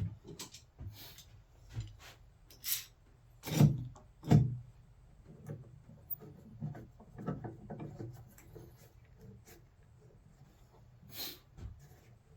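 A DIY track-saw jig being slid and nudged into position on a wooden tabletop: scattered rubbing and light knocks, with two louder thumps about three and a half and four and a half seconds in.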